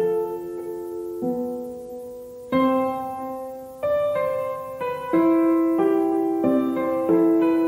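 Background piano music: chords struck about once a second, each left to ring and fade before the next.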